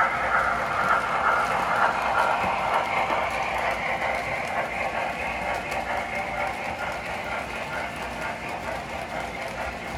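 O gauge model steam locomotive and freight cars rolling past on the layout's track: a steady rumble and rattle of wheels on rails, fading slowly as the train moves away.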